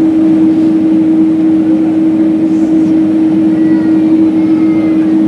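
Cabin noise inside a Boeing 767-300ER while taxiing: the jet engines running with a steady hum and a strong constant tone over even rushing noise.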